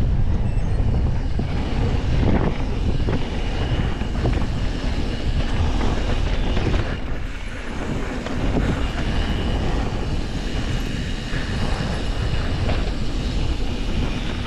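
Wind rushing over an action camera's microphone, mixed with mountain bike tyres rolling over a dirt and gravel trail and the bike rattling over bumps during a fast descent. The noise is steady and low, dipping a little for a moment about seven seconds in.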